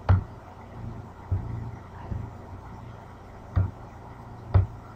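A few sharp computer mouse clicks, the clearest two about a second apart near the end, over a low steady hum.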